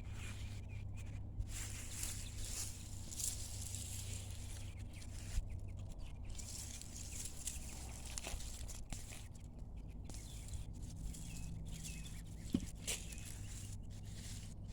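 Faint outdoor ambience over a steady low hum, with a small bird chirping at the start and again near the end, and scattered soft knocks and rustles.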